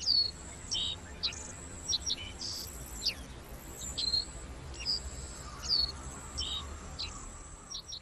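Forest birds chirping: a dozen or so short high calls, some sliding down in pitch, spaced about half a second to a second apart, over a thin steady high tone.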